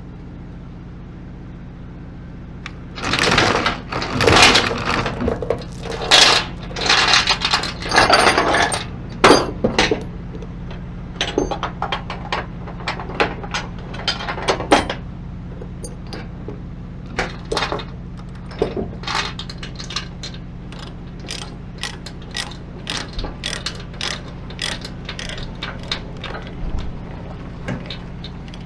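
Steel load chain clanking and rattling against the flatbed's deck and rail for several seconds. Then a ratchet chain binder is cranked in a long run of clicks, at about two a second near the end, tightening the chain that secures a wooden cable reel. A steady low hum runs underneath.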